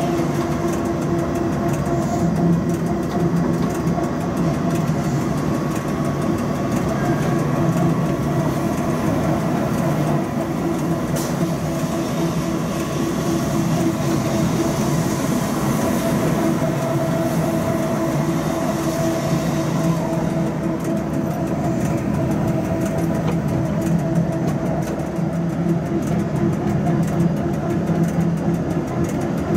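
Rhaetian Railway Ge 6/6 II electric locomotive running steadily, heard from inside its cab: a constant hum with the wheels rolling on the rails.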